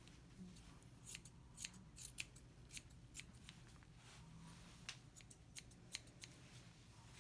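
Straight grooming scissors snipping through a dog's hair: a dozen or more light, crisp snips at irregular intervals.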